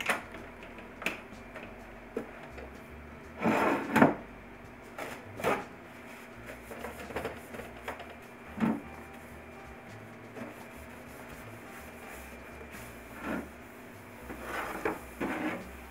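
Kitchen items being handled and set down on a countertop: scattered knocks, taps and rubbing at irregular intervals, loudest a few seconds in.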